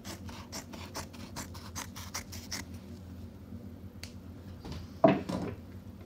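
Scissors snipping through woollen pool-table baize, a quick run of about six cuts a second for two and a half seconds, trimming the excess cloth at a corner pocket. A short, louder sound follows about five seconds in.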